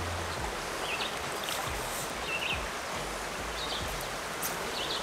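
Creek water running steadily, with a few short bird chirps at intervals over it.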